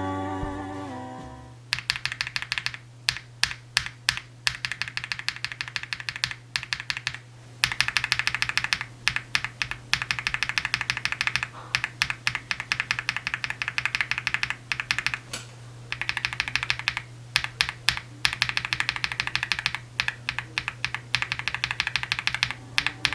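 Mechanical keyboard being typed on in fast runs of clacky keystrokes with short pauses between them, over a steady low hum. Background music fades out in the first second or two.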